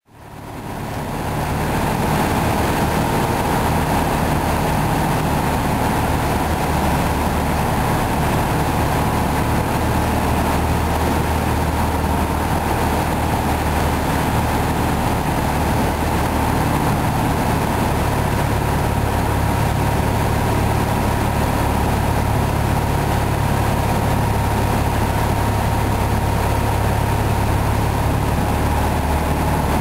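Piper Cherokee Six's six-cylinder Lycoming engine and propeller droning steadily, heard inside the cabin along with rushing airflow. The sound fades in over the first two seconds, and the pitch of the low drone shifts slightly a little past halfway.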